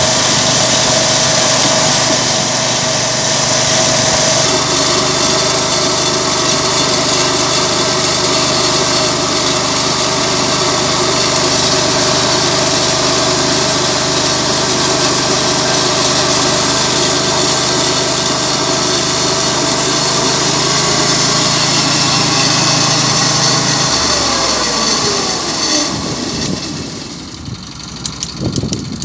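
Sawmill slabbing attachment, an engine-driven long chain bar, running steadily under load as it cuts through a log. About five seconds before the end the engine pitch slides down and the sound drops to a quieter idle as the cut finishes.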